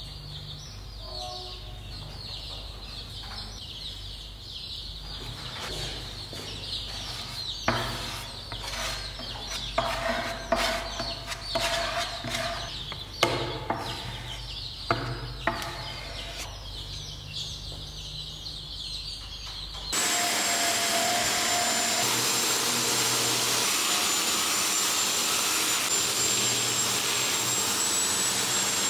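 Wood being sanded by hand with sandpaper: irregular scratchy strokes that come thicker and louder in the middle. About two-thirds through, a handheld grinder with a sanding disc cuts in and runs steadily with a thin high whine as it sands the chair's turned wooden spindles.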